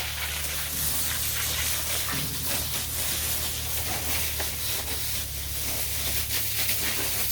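Water spraying in a steady hiss with splashing, as the cattle shed is washed down, over a steady low hum.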